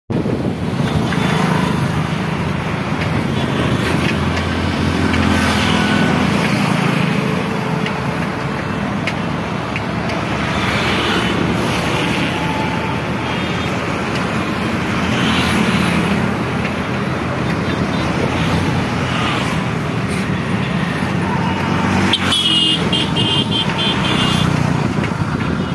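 Road traffic running steadily with engine and tyre noise, and a vehicle horn tooting briefly about 22 seconds in.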